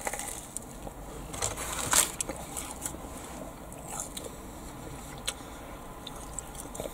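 Crunching bites into a deep-fried, battered pizza, the crisp batter crackling, loudest about two seconds in, then quieter chewing with a few small crunches.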